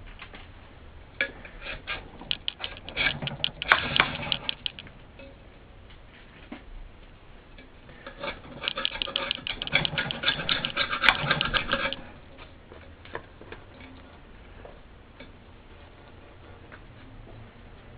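A flat scraper rasping around the rim of an ESS AMT woofer's basket, clearing off the remains of the old crumbled foam surround. It comes as quick scraping strokes in two spells, a shorter one in the first few seconds and a longer, louder one in the middle.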